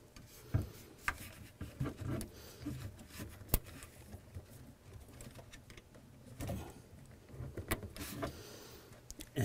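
Scattered light clicks and knocks as a hydraulic hose fitting is handled and pushed into a convertible-top hydraulic pump, with one sharp click about three and a half seconds in.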